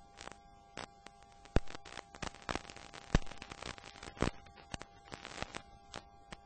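Irregular sharp pops and crackles, scattered and uneven in strength and busiest around the middle, over a faint steady hum.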